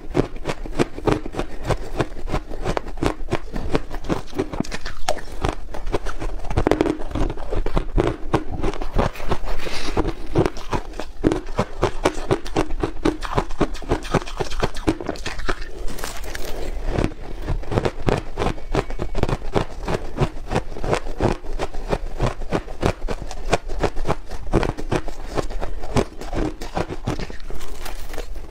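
Soft frozen ice being bitten and chewed: a dense, unbroken run of crisp crunches and crackles.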